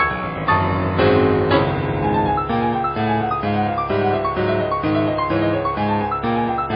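Piano music, with an evenly repeating low figure of notes and a higher line of notes over it.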